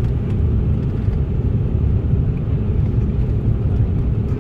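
Cabin noise of an Embraer E190-E2 taxiing on the ground: a steady low rumble from its Pratt & Whitney PW1900G geared turbofan engines at taxi power and the aircraft rolling along the taxiway.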